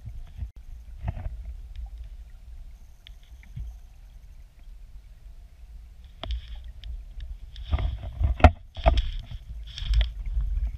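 Muffled low rumble of river current heard through an underwater camera housing. From about six seconds in come a run of knocks and scrapes against the housing, loudest around eight to ten seconds, as waterweed drifts against the lens.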